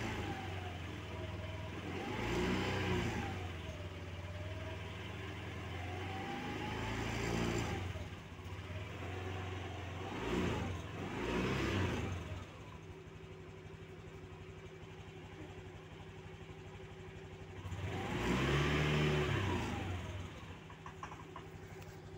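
Honda PGM-FI fuel-injected motorcycle engine idling while stationary and being revved in about five short blips, each rising and falling in pitch, then settling back to a steady idle.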